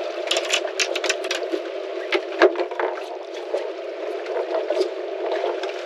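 Water sloshing and slapping against a fishing boat's hull, with irregular sharp splashes and clicks, thickest in the first two and a half seconds.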